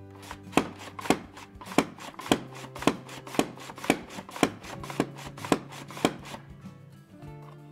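Carrot being julienned on a Wons (원스채칼) vertical mandoline slicer: the pusher is pumped down through the blade again and again, each stroke a sharp clack as the carrot is cut. About eleven strokes, roughly two a second, stopping about six seconds in.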